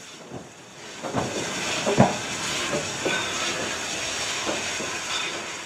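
Fireless steam locomotive moving slowly, hissing steam, with a few irregular knocks and clanks, the loudest about two seconds in.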